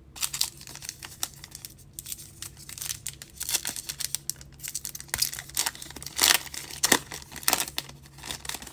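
Foil wrapper of a Diamond Kings baseball card pack being torn open and crinkled by hand: a run of sharp crackles, loudest in the second half.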